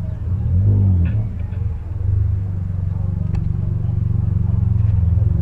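Car engine and exhaust running with a deep, steady rumble, blipped once in a short rev about half a second in.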